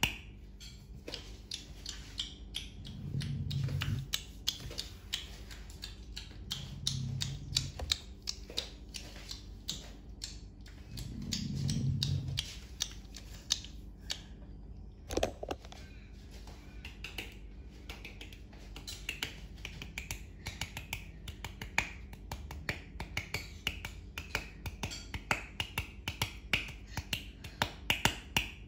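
Rapid, irregular clicking, several sharp clicks a second, with three brief low hums spread through it.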